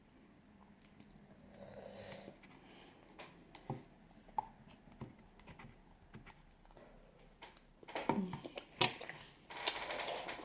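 Close-miked chewing and small mouth clicks while eating a boiled egg, with a few louder smacking sounds near the end.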